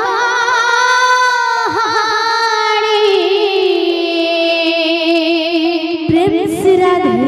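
A woman's voice singing long, drawn-out notes of an Odia kirtan devotional song, the pitch wavering and sliding between notes.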